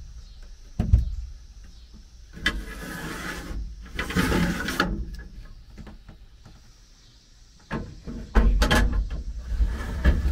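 A ladder rack's metal sliding mount being slid along its rail, past a fastener head ground down for clearance. There is a sharp knock about a second in, a stretch of sliding noise, and heavier knocks and rattling near the end.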